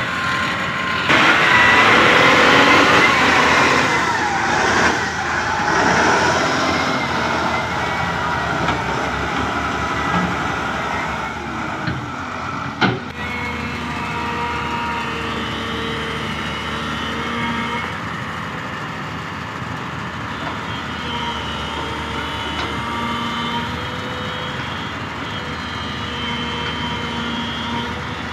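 Diesel engine and hydraulics of a LiuGong 920D crawler excavator working, with a LiuGong wheel loader running close by. Whining tones waver up and down in the first half and hold steadier later, and there is a single sharp knock about halfway through.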